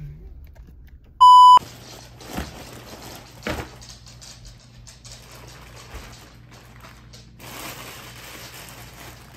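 A short, loud electronic bleep about a second in, then the crinkling and rustling of a clear plastic seafood-boil bag being handled, with a couple of sharp knocks. The rustling grows louder near the end.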